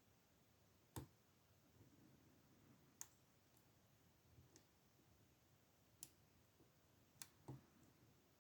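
Faint, isolated clicks of a lock pick and pin tumblers inside an old Ruko padlock being picked: about five over several seconds, the loudest about a second in and two close together near the end.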